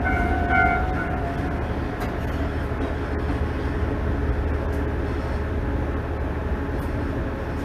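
Tenryu Hamanako Railway TH9200 diesel railcar running, heard from inside the cab: a steady low rumble of engine and wheels. A ringing tone with overtones fades out about a second in.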